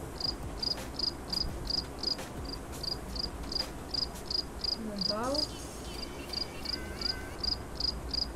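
Cricket chirping: a steady run of short, high chirps, about three a second, used as a sound effect for an awkward pause. A brief warbling glide rises and falls about five seconds in.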